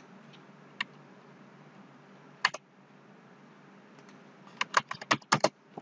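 Clicks from a computer mouse and keyboard: a single click, then a quick double click, then a fast run of about eight clicks near the end, over a faint steady hiss.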